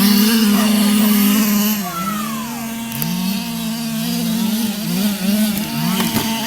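Toy RC cars' motors whining, the pitch sweeping up again and again as the throttle is opened and eased off.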